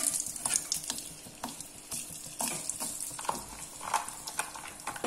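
Hot ghee sizzling in a metal kadai over a gas flame, with a metal spatula scraping and tapping against the pan now and then.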